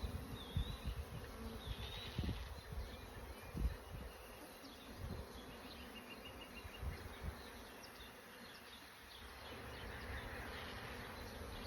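Honeybees buzzing around an opened hive, the buzz swelling louder near the end, with a few dull low bumps in the first few seconds.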